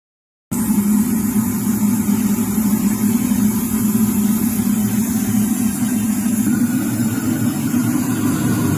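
Fighter jet engine noise: a loud, steady rumble with a hiss over it, starting abruptly about half a second in.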